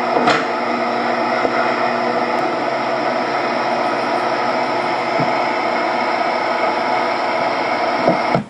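A loud, steady whirring noise with a hum running through it, like an electric appliance motor, that cuts off suddenly near the end.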